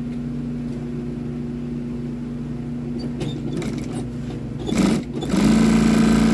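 Juki industrial sewing machine stitching through a foam-backed seat-cover panel: a short burst of stitching about five seconds in, then a longer, louder run of about a second at the end. Its motor hums steadily beforehand.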